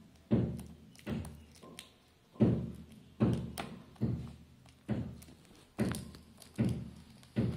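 A series of dull thumps and knocks, about ten at uneven spacing of roughly one a second, as a right-angle forceps and fingers work the foam-tube model in its plastic tray.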